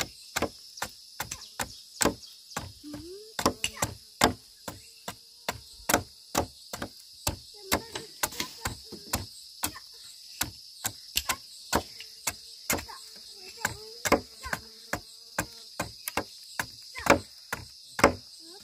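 Repeated chopping blows, about two a second, some louder than others, over a steady high-pitched drone of insects.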